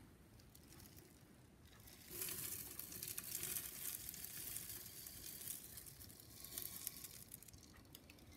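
Paraffin-soy wax flakes being scooped and poured into a metal pouring pitcher, a crackly, hissing rustle with many small clicks that starts about two seconds in and fades near the end.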